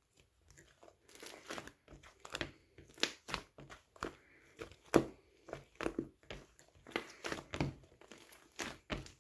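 Black slime being squeezed and stretched by hand, making irregular crackling pops and clicks, about two a second, with the loudest pop about five seconds in.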